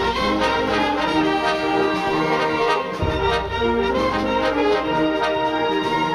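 Symphonic wind band playing, with the brass section to the fore: trumpets, trombones and low brass holding broad, sustained chords. The deep bass drops away for about a second around the middle, then comes back in.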